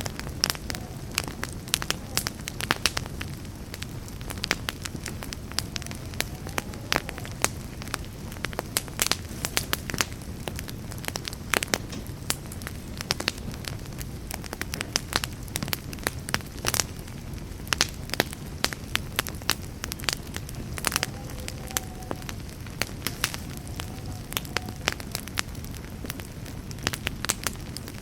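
Campfire burning steadily, with frequent sharp crackles and pops of burning wood over a low, even rush of flame.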